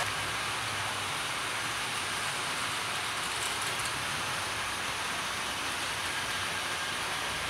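00 gauge model trains running on their track: a steady whirr and rattle of wheels and motors.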